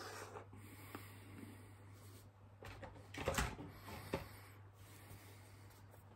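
Quiet room with a steady low hum. A little over three seconds in comes a brief rustling noise, and about a second later a single light click.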